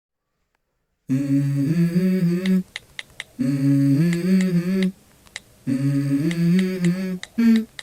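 Background music: the intro of a rap song, a hummed vocal melody in three short repeated phrases, with a few sharp clicks in the gaps between them.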